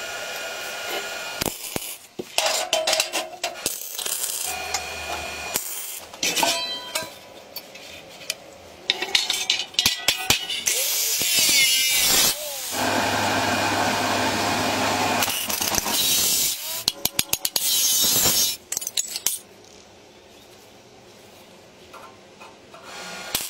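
Workshop handwork: repeated clicks, knocks and metallic clinks of parts and hand tools, with a small power tool running steadily for several seconds past the middle.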